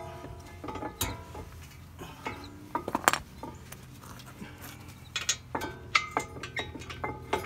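Metal clinks and knocks as a brake caliper is set over a new brake rotor and seated on its mounting, with the sharpest knock about three seconds in.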